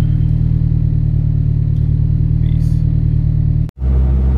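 Turbocharged Honda Civic EK3's engine running steadily, heard from inside the cabin. About three and a half seconds in it cuts off sharply and gives way to a lower, steady engine drone as the car is driven.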